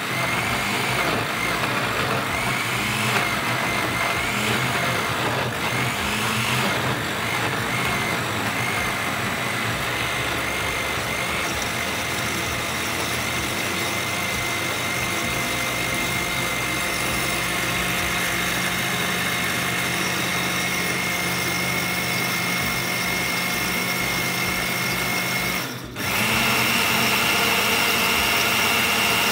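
Countertop blender motor running, chopping chunks of banana, apple and orange into a smoothie. Its high whine wavers for the first several seconds while the fruit pieces are being cut up, then holds steady once the mix is a smooth purée. Near the end it dips for a moment and comes back louder and higher in pitch.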